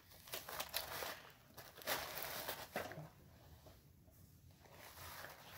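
Rustling and light knocks of packaging and paper being handled, busiest in the first three seconds and quieter afterwards.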